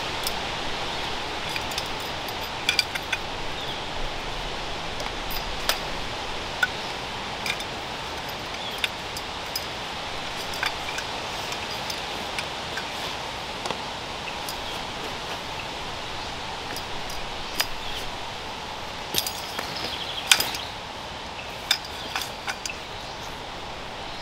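Tent poles clinking and clicking as they are pulled from the tent and their sections handled, in scattered sharp clicks with a quicker run of them near the end, over a steady outdoor hiss.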